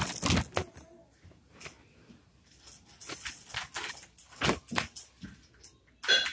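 Plastic K'nex roller-coaster track pieces clicking and rattling as they are handled and fitted together: a scatter of light clicks with quiet gaps between them.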